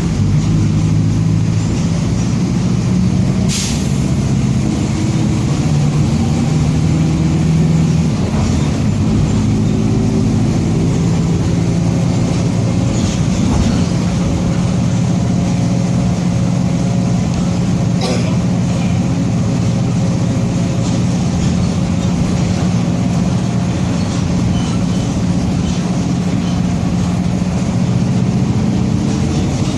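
Mercedes-Benz OF-1722M city bus under way, its diesel engine running with a growling differential underneath it. The hum shifts in pitch in the first half and then holds steady. Short sharp noises come a few seconds in and again about midway.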